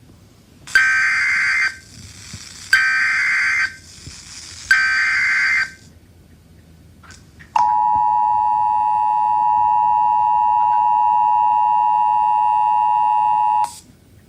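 Emergency Alert System tones: three bursts of SAME header data, each about a second long and a second apart. After a short pause comes the steady two-tone EAS attention signal, held about six seconds and cut off abruptly.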